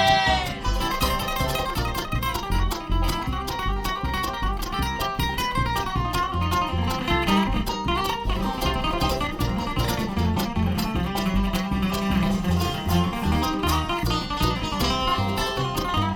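Bluegrass band playing an instrumental break: picked acoustic strings (guitar, banjo, mandolin) taking the lead over a steady walking bass. A held sung note fades out right at the start.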